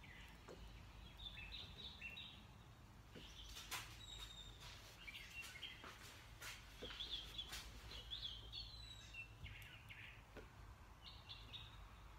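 Faint bird chirps: short, high calls repeating on and off, with a few light taps and a low steady hum underneath.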